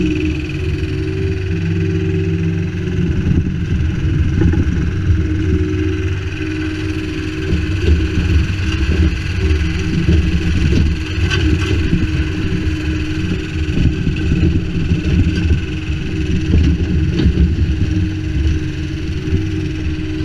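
Kubota U25-3 mini excavator's diesel engine running steadily under hydraulic load as its bucket grades loose stone, heard close up from on the machine.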